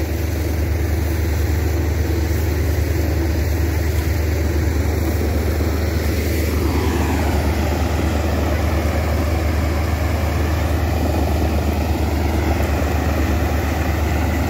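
Tractor-driven wheat thresher running steadily, with the tractor engine's low hum under the rush of the threshing drum and straw blower as sheaves are fed in. The crop is damp, unripe wheat. The rushing noise grows louder about six and a half seconds in.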